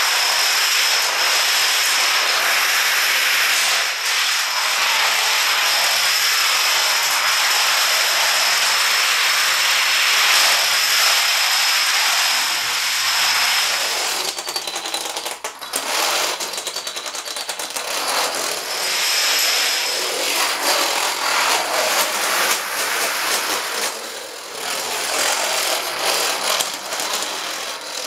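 Hundreds of plastic toy dominoes toppling in chains, a dense, rapid clatter of many small clicks that thins briefly about halfway through and again near the end.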